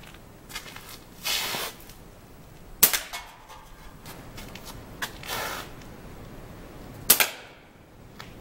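Crosman .22-calibre pump pellet pistol firing twice: two sharp pops about four seconds apart. Each pop comes a second or so after a brief hiss.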